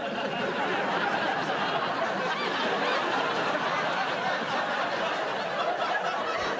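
Studio audience laughing, a dense, sustained wave of many voices.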